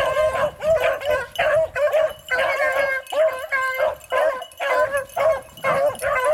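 Beagles baying on a rabbit's trail, a quick, steady string of short bawling barks that sometimes overlap. The hounds are giving voice as they run the scent.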